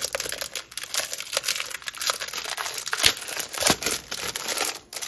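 Thin clear plastic sleeve crinkling as it is handled and pulled open by hand, in a run of irregular crackles with a louder crinkle about three seconds in.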